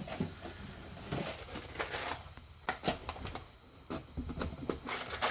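Light, scattered clicks and rattles of small metal lock-picking tools being handled and sorted while a tension wrench is picked out.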